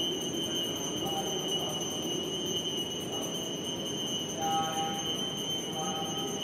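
Steady rushing room noise with a constant high-pitched whine, and a few faint short tones about four and a half seconds in and again near the end.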